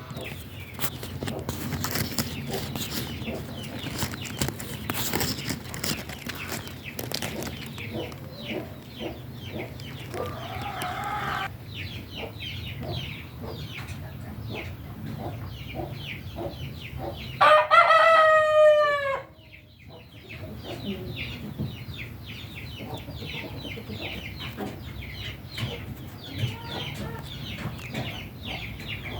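A rooster crows once, loud and long, about two thirds of the way through, over steady chicken clucking and short calls. A fainter, shorter call comes a little before halfway.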